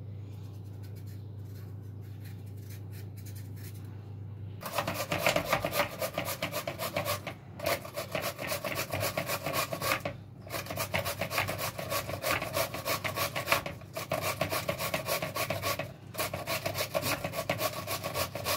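Cucumber being grated on a hand grater: rapid back-and-forth rasping strokes that start about four and a half seconds in and run on with three brief pauses. Before the grating, only a low steady hum.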